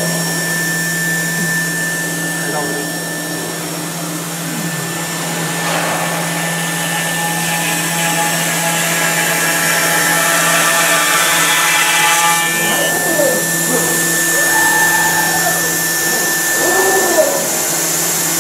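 5-axis CNC router's spindle running steadily while a carving bit cuts a foam block, a constant machine whine. Partway through, extra tones come in along with a few short whines that rise and fall in pitch, as the machine's axes move the head.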